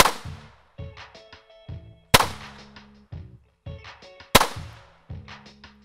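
Three pistol shots from an FN Model 1900 firing .32 ACP (7.65×17mm), spaced about two seconds apart, each a sharp crack with a short echo tail.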